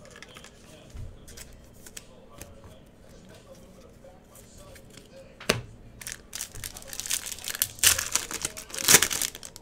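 Soft clicks of trading cards being handled, then, from about six seconds in, the foil wrapper of a Panini Score football card pack crinkling loudly as it is torn open.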